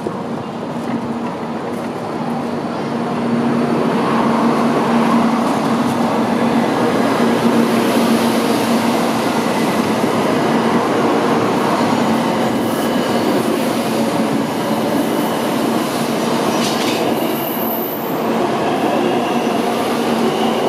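Tokaido Shinkansen train rolling slowly past at the station, its wheels rumbling on the rails under a steady electric motor hum. It grows louder about three seconds in, and a brief high wheel squeal comes near the end.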